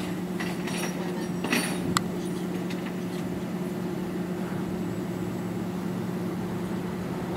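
A steady low motor hum, as from an idling vehicle, over the even noise of passing street traffic, with two light clicks about one and a half and two seconds in.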